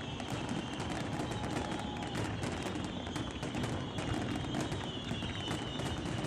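Fireworks crackling in a dense, rapid, unbroken patter of small pops, with a low rumble underneath.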